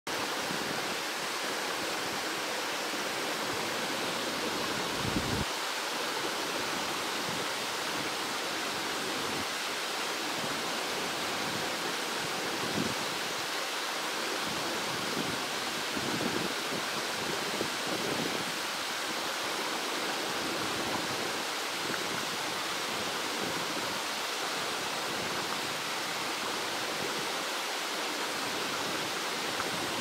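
Small waterfall cascading over rocks into a shallow pool, a steady rush of splashing water. A brief low thump about five seconds in.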